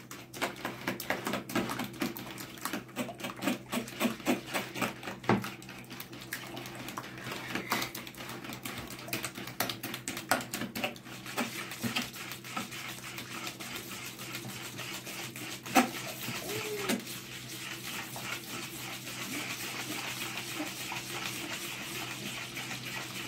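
Metal spiral whisk beating eggs, sour cream and mayonnaise in a bowl. Rapid clicking of the wire against the bowl for the first half, then a steadier wet swishing as the mixture turns smooth, with an occasional knock.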